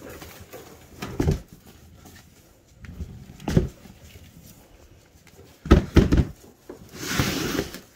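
Riding-mower tyre on its steel rim being tipped and rolled on a concrete floor to spread the foam inside: a few dull knocks, the loudest about six seconds in, then a short scraping rush near the end.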